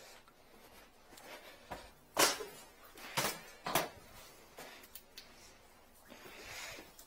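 Sharp knocks and clatters of metal equipment being handled as a drum-type drain-cleaning machine is carried in and set down, with one loud knock about two seconds in and two more about a second later.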